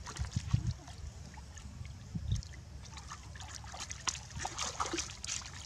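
Pond water splashing and trickling as long-tailed macaques swim and thrash at the water's edge: irregular small splashes and drips, busiest in the first two seconds and again around four seconds in.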